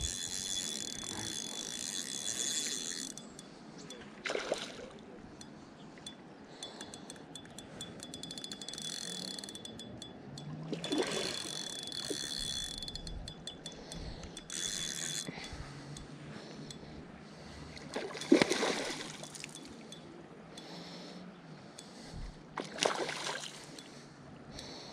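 Korum Neoteric FS 5000 spinning reel being wound in spurts: a high whirring with a faint steady whine for about three seconds at the start and again from about eight to thirteen seconds in. A few short, louder handling noises fall between the spurts.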